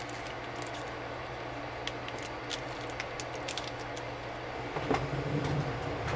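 Steady low machine hum with scattered light clicks and taps; a louder, rougher low rumble comes in about five seconds in.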